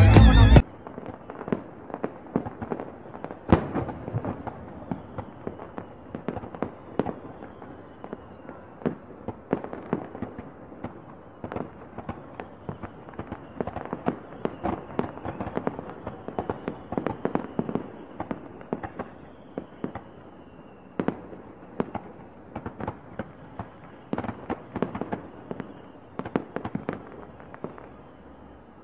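Fireworks and firecrackers going off all over a city: a dense, irregular crackle of pops and bangs, with a sharper bang about three and a half seconds in and a few faint falling whistles.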